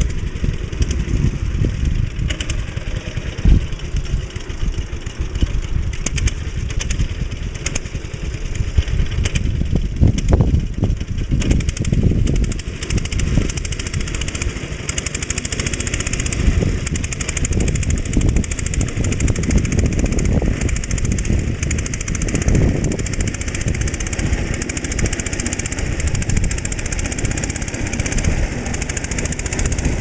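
The 5.5 hp JAP 5 engine of a Trusty tractor running steadily, with a continuous rapid firing beat.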